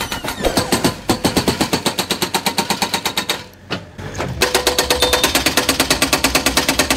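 A fast, even rattle of sharp pulses, about nine a second, that drops out briefly about three and a half seconds in and then starts again.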